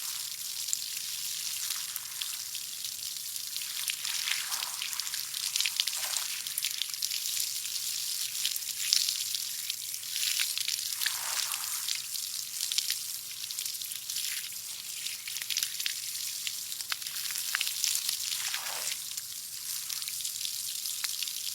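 Water spraying with a steady high hiss, swelling every few seconds.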